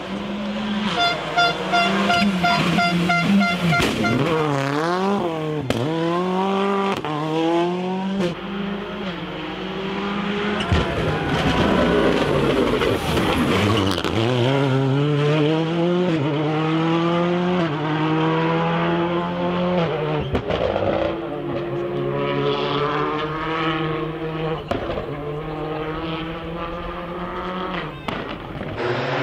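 Skoda Fabia WRC rally cars' turbocharged four-cylinder engines revving hard, the pitch climbing and dropping repeatedly through gear changes as the cars accelerate and brake through the corners.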